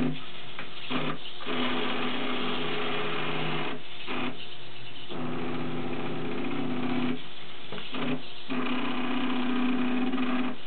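Meccano kumihimo braiding machine running: its motor and gears whir with a steady hum, in runs of one to three seconds broken by short pauses as the machine moves from step to step.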